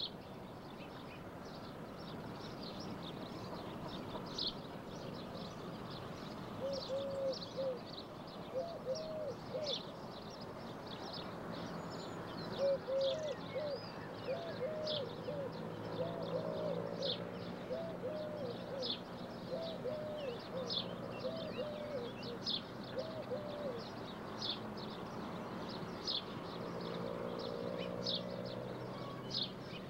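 Outdoor birdsong: many short high chirps throughout, joined from about seven seconds in by low cooing phrases in short groups of three or four notes.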